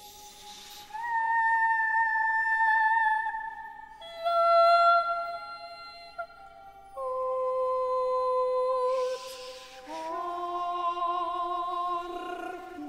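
Slow contemporary orchestral music for baritone and chamber ensemble: a series of long, steady held notes, each two or three seconds, stepping down in pitch, with a brief high shimmer twice. From about ten seconds in, a baritone voice holds a note with vibrato over the ensemble.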